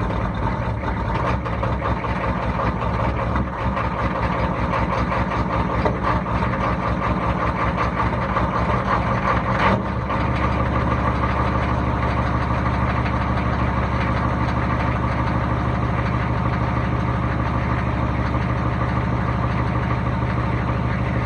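GM 6.5-litre V8 diesel idling just after a cold start. About halfway through the sound shifts slightly and the idle runs steadier after that.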